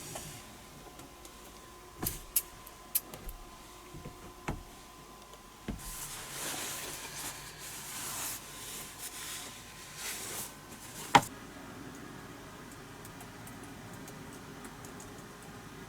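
Several sharp clicks and knocks with a few seconds of rustling between them, like objects being handled in a small space. The loudest click comes about eleven seconds in, over a faint steady tone.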